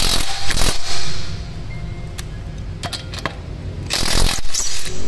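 Makita DTW700 18V cordless impact wrench hammering on a car's wheel lug nuts in two short bursts, one in the first second and another about four seconds in.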